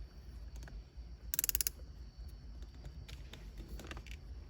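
A wrench ratcheting in a quick burst of rapid clicks about a second in, working the shift knob's jam nut on the shifter, followed by a few faint taps.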